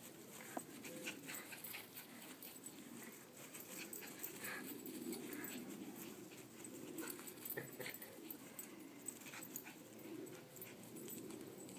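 Faint sounds of a small Chinese Crested dog at play, chasing a toy on a string, over a steady low background noise with scattered light clicks.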